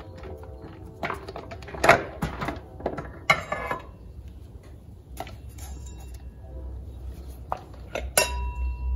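Steel geartrain parts clinking and scraping against each other and the case as the drum and planetary gear set are drawn out of a Chrysler A-904 automatic transmission: a series of sharp metal clinks with brief ringing, loudest about two and three seconds in.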